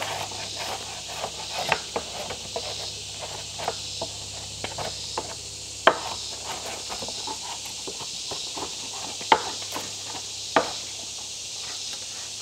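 Hatchet working a rough wooden slab: a run of light scrapes and clicks with three sharp chopping knocks, about six seconds in and twice near the end. Insects buzz steadily in the background.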